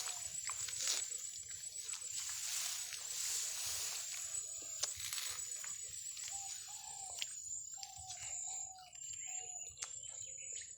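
Outdoor paddy-field ambience: a steady high insect drone with light rustling and clicks, and a few faint short calls.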